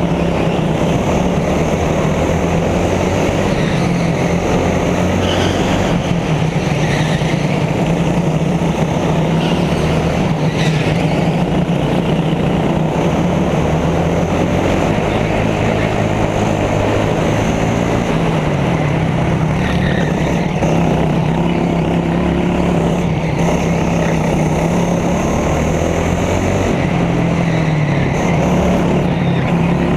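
Go-kart engine running hard, heard from on board the kart, its pitch dipping and climbing back several times through the corners.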